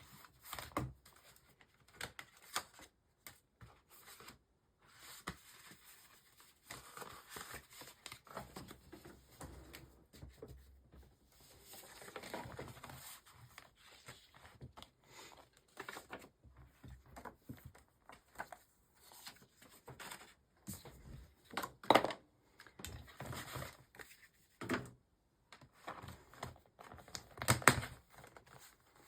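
Paper pages of a planner being handled and turned, with on-and-off rustling and crinkling and a few sharper knocks, the loudest about twenty-two seconds in and again near the end.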